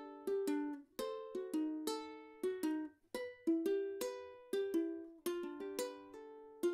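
Solo ukulele fingerpicked: single plucked notes in a flowing arpeggio pattern, with a short break about three seconds in.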